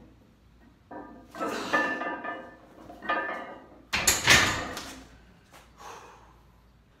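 A man grunting and straining through the last squat rep, then a heavily loaded steel barbell clanking onto the hooks of a power rack about four seconds in, with a few lighter knocks of the bar settling.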